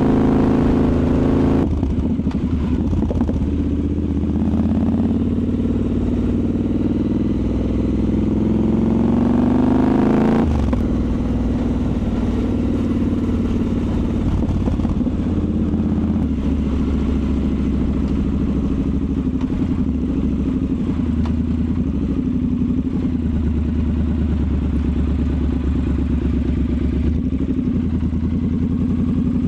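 Triumph Scrambler 1200 XE's parallel-twin engine heard from on board while riding, pulling up through the revs for about ten seconds. The revs then drop sharply and it runs on at steadier, lower revs with small rises and falls.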